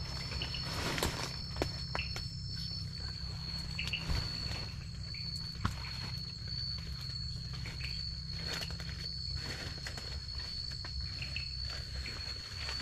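Night insects, cricket-like, keeping up one steady high-pitched trill, with scattered faint rustles and clicks over a low steady rumble.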